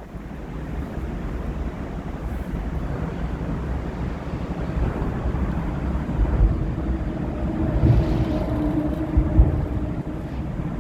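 Wind buffeting the microphone over a steady low engine rumble. From about seven seconds in, a humming engine tone joins and fades again near the end.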